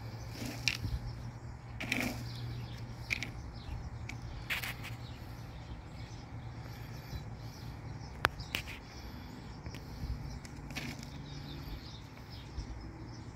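Light handling of dry dog kibble in a clear plastic container: scattered soft rustles and clicks, with one sharper click about eight seconds in, over a steady low hum.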